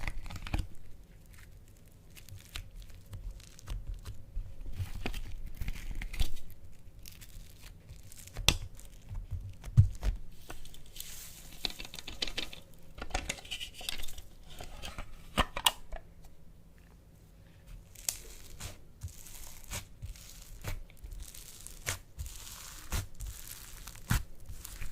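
Slime being stretched and pressed close to the microphone, giving irregular sticky crackles and sharp pops with a tearing quality.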